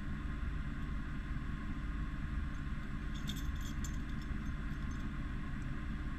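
Jeep engine idling steadily, with a few light metallic clinks about three seconds in.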